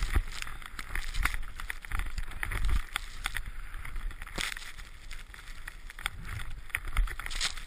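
Snowboard riding through deep powder: a steady hiss of the board cutting and spraying snow, with low wind buffeting on the microphone and frequent short knocks and scrapes.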